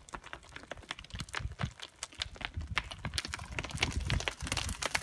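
Loose scree stones crunching and clattering as people move down a steep gravel slope, the stones shifting underfoot. The clicks come faster and louder toward the end.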